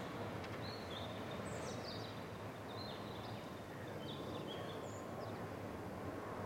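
A small bird chirping in short, high notes again and again over a steady outdoor rush of noise.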